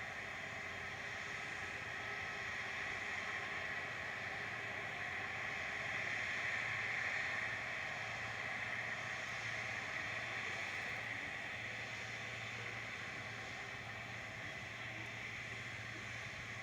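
Ilyushin Il-76's jet engines heard at a distance as a steady whine with a rushing hiss, swelling a little about halfway through and easing off after.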